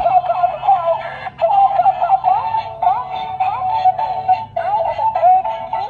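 Battery-powered toy Airbus airplane playing a quick, chirpy electronic tune through its small speaker, thin and tinny.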